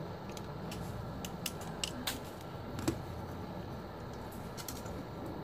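Light clicks and taps of plastic drone gimbal parts and a small screwdriver being handled on a workbench, over a steady low background hum.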